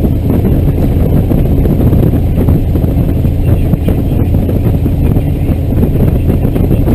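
Scottish Aviation Bulldog's Lycoming four-cylinder piston engine running at low taxi power, a loud steady drone heard from inside the cockpit.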